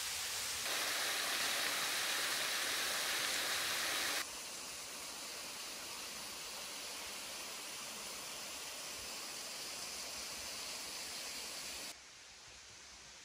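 Steady splashing hiss of a small waterfall trickling down a rock face, with no other distinct sounds. It drops in level in two steps, about four seconds in and again near the end, to a quieter hush.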